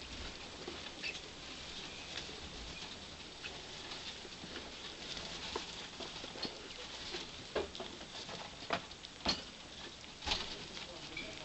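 Pet rats feeding from a bowl and shuffling in wood-shaving bedding: a steady patter of small clicks and rustles, with a few sharper clicks in the second half.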